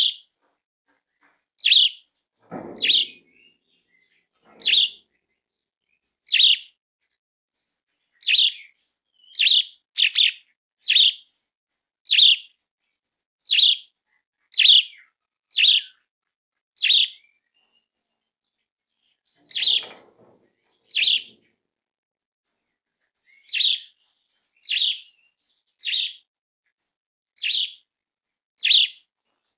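Asian pied starling (jalak suren) giving a loud, harsh call over and over: about twenty short, sharp notes, roughly one a second, with a couple of short pauses. A brief lower-pitched noise comes twice, near the start and about two-thirds of the way through.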